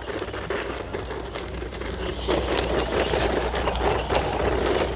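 HBX Vanguard 1/12-scale four-wheel-drive RC truck with a brushed motor driving over rough ground: a steady noisy rush of motor, gears and tyres with small clicks and scrapes. It gets louder about two seconds in.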